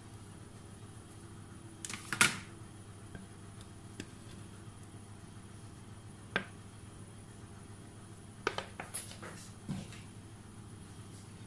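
Scattered light clicks and knocks of a silicone spatula and mixing bowl against a paper-lined cake pan as sponge batter is spread and scraped out, the loudest about two seconds in and a small cluster near the end, over a low steady hum.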